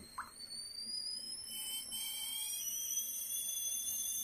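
Stovetop kettle whistling, its thin high tones rising slowly in pitch and then holding steady as it comes to the boil.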